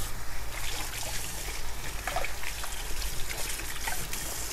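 Kitchen tap running steadily into the sink.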